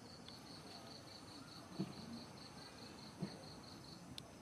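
Insect chirping, an even train of high pulses about four to five a second that breaks off near the end. Two soft low thumps, a second and a half apart, are the loudest sounds.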